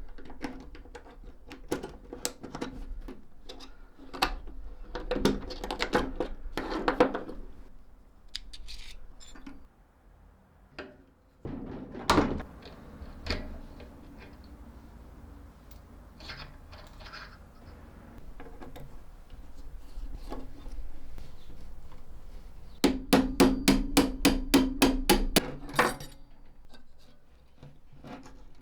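Metal parts of a Felix M mechanical calculator being handled and worked with hand tools: scattered knocks, clicks and light clinks, one sharp knock about twelve seconds in, and near the end a quick run of about a dozen evenly spaced strikes, about four a second, that ring.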